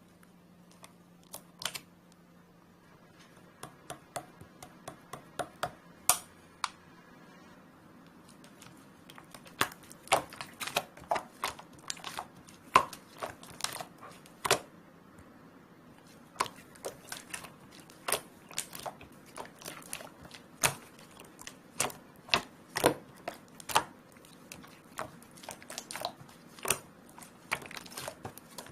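Slime being squeezed and pressed by hand, making a run of sharp clicking and popping sounds: sparse at first, then a few clicks a second from about eight seconds in.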